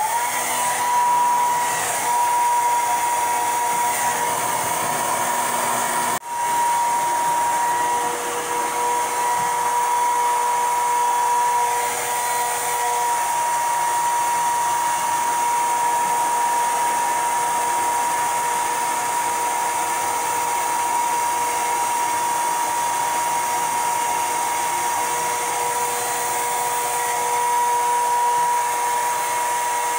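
Handheld hair dryer blowing steadily, a rush of air with a steady whine from its motor. It starts suddenly and drops out for a split second about six seconds in before running on.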